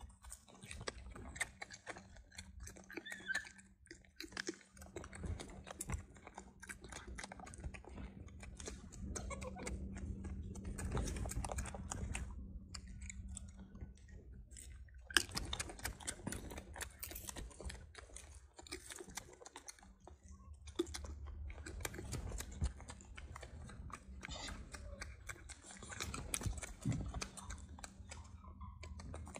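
Faint, irregular clicking and crackling of a golden snub-nosed monkey chewing food close to the microphone, over a low steady hum.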